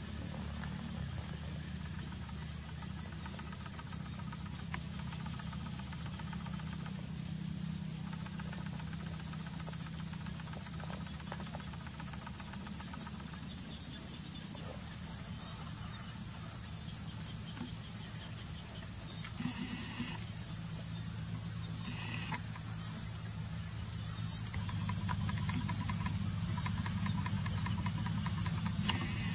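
Steady low motor hum under a constant high-pitched insect drone, with a few brief scuffling noises about two-thirds of the way in.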